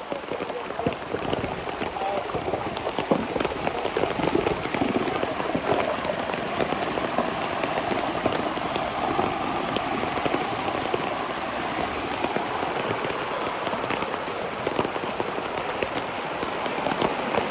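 Torrential rain pouring down, a dense steady patter of countless drops hitting surfaces.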